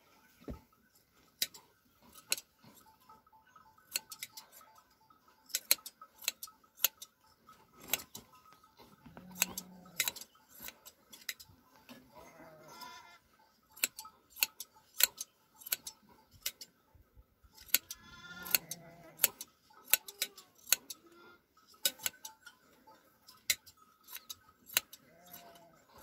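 Hand shears snipping through a sheep's fleece: a steady run of sharp metal snips, one or two a second. The sheep bleats twice, about halfway through and again a few seconds later.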